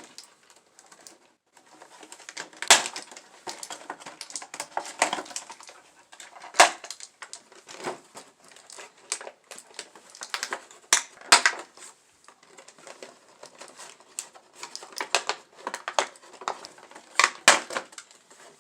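Plastic toy packaging being handled as a small plastic Transformers figure is pulled free of its tray clips: irregular plastic clicks, snaps and crinkles, a few of them sharper and louder than the rest.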